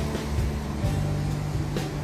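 Background music with slow, held notes, over a steady hiss that sounds like rain.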